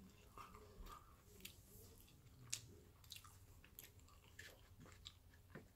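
Faint close-up chewing of a large slice of pickled sushi ginger, with scattered soft, irregular mouth clicks and small crunches.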